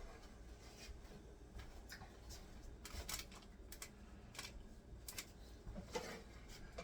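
Faint, scattered light clicks and taps of hands and utensils handling food during meal preparation, over a low steady room hum.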